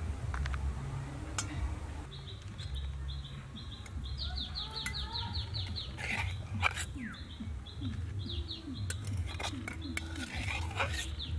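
Small birds chirping: runs of short, high chirps, each falling in pitch, repeating several times a second. A few sharp clicks come in the middle and near the end.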